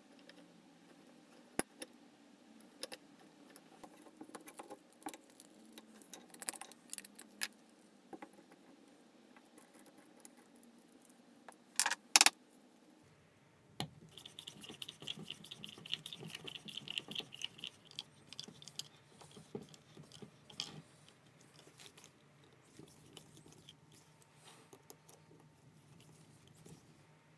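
Faint metal-on-metal clicks and scrapes as a tap in a hand tap wrench cuts threads into a steel lathe faceplate, with a sharp double clack about twelve seconds in. After that, a higher rasping scrape comes for a few seconds while the steel four-jaw chuck is worked, then scattered clicks.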